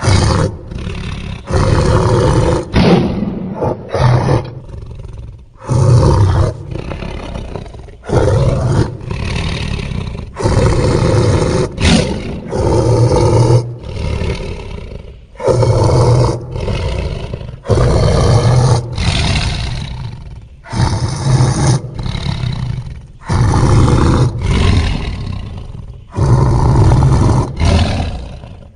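Sound-effect roars of the fictional dinosaur Megatyrannosaurus Rex: a run of about fifteen loud roars, each one to two seconds long, with short gaps between them.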